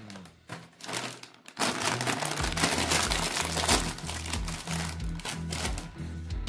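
A foil-lined plastic snack bag crinkling as it is torn open by hand, loudest from about one and a half seconds in. Background music with a repeating bass line plays underneath.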